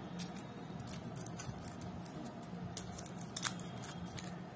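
Dry shells of roasted jackfruit seeds cracking and peeling away under a small knife and fingers over a steel plate: scattered light crackles and clicks, with two sharper snaps a little past halfway.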